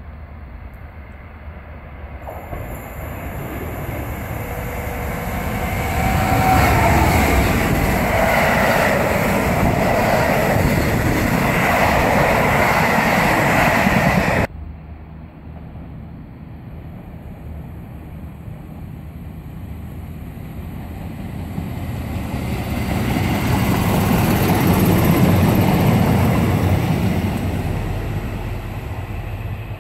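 A train passing by: its noise builds to a loud, steady peak, then cuts off abruptly about halfway through. Then a second train passing swells to a peak near the end and fades.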